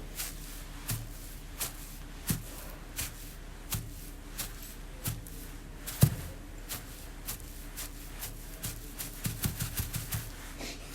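A steady series of sharp taps or knocks, about one every 0.7 seconds, each with a slight low thud under it. One knock about six seconds in is much louder, and the taps come quicker and closer together near the end.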